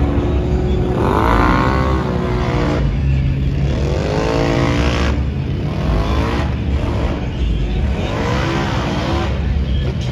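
Off-road vehicle engine revving three times, each rev climbing and then falling back, over a steady low rumble of running engines.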